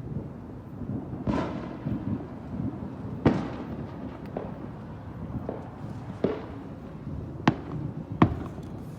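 Fireworks exploding: a string of about seven sharp bangs at uneven intervals over a steady low rumble. The loudest come a little over three seconds in and twice near the end.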